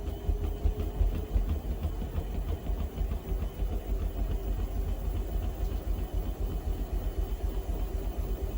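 Panasonic front-loading drum washing machine running, with a steady low rumble that pulses rapidly and a steady hum above it.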